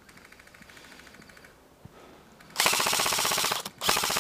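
Airsoft electric gun firing on full auto. Faint rapid fire at first, then about two and a half seconds in a loud, rapid burst, a brief break, and the firing starts again.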